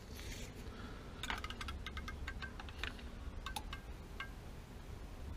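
A scattered run of light metallic clicks and clinks, some with a short ringing tone, over a faint low rumble.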